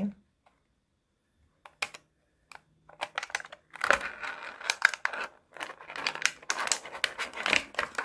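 Clear plastic blister pack crinkling and crackling as it is handled and pried open. A couple of single clicks come first, then dense crackling from about three seconds in.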